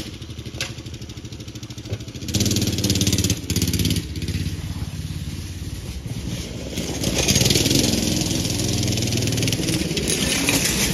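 Small go-kart engine pull-started and catching at once, running unevenly for a moment, then revved hard about two seconds in. Its pitch rises and falls repeatedly as the kart is driven.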